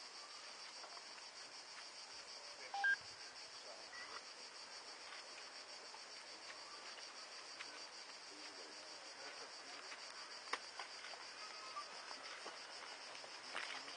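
Cicadas keep up a steady, high-pitched, finely pulsing drone. About three seconds in there is a single short clink, the loudest sound here, along with a few faint ticks.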